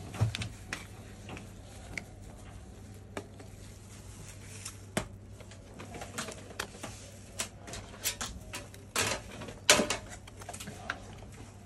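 Scissors snipping the edge of a white paper sheet, with the paper rustling and plastic gloves crinkling as it is handled: scattered short clicks and brief rustles, busiest near the end, over a faint low hum. The side is being trimmed so the paper sits properly inside a laptop screen.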